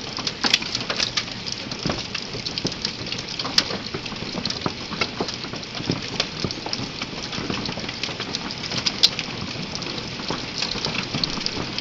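Hail mixed with heavy rain, heard from behind a window pane: a steady hiss of rain with many sharp, irregular clicks of hailstones striking. One hit is louder than the rest, about nine seconds in.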